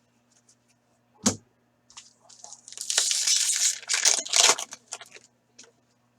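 Foil wrapper of an Upper Deck hockey card pack being torn open and crinkled, after a single sharp click about a second in. The tearing lasts about two seconds.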